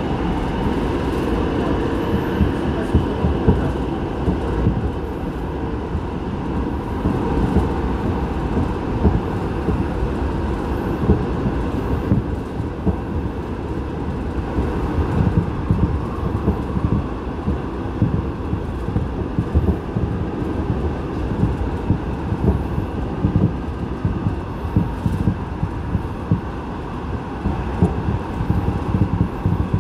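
Seoul Subway Line 8 train running through a tunnel, heard from inside the car: a steady low rumble with frequent sharp clicks and rattles from the wheels on the track, and a faint steady high tone.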